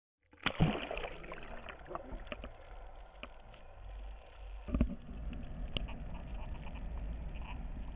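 Underwater noise picked up by a GoPro in its waterproof housing just below a boat's hull: a sharp knock about half a second in, then bubbling, scattered clicks and water wash, another knock about five seconds in, and after it a steady low rumble.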